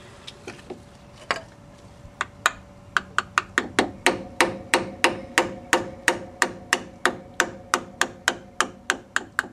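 Hammer blows on a steel punch held against the pinion pin inside an MGB Salisbury differential carrier. A few scattered taps come first, then steady blows about three a second, each with a metallic ring.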